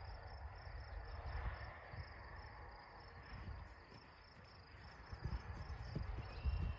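Insects chirping steadily in a grass field, over a faint low rumble; from about five seconds in, irregular dull low thumps come through.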